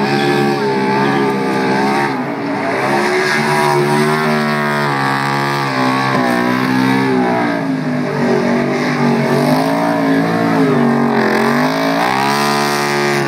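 NASCAR stock car's V8 engine revving up and down again and again during a burnout, the rear tires spinning against the pavement.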